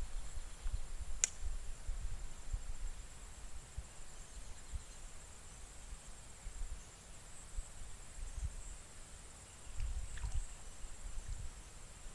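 Outdoor ambience: an irregular low wind rumble on the microphone under a steady high insect drone, with one sharp click about a second in.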